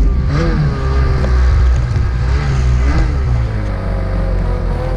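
Ski-Doo Summit 850 E-TEC snowmobile's two-stroke twin engine running hard under load in deep powder, its revs rising and falling as the throttle works.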